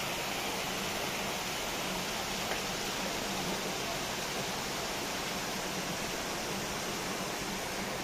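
Steady rushing of a small spring-fed waterfall: an even hiss of falling water that holds level throughout.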